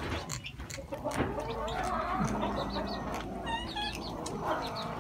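A group of kittens and young cats feeding together: wavering growls and mews over the food, with small chewing clicks and short high chirps.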